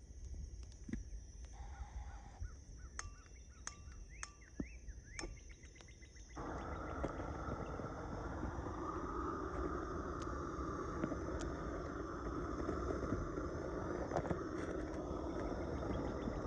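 Propane torch wand burning with a steady rushing hiss of flame that comes in abruptly about six seconds in, thawing ice off a car door. Before that there are only faint outdoor sounds with a few clicks and short calls.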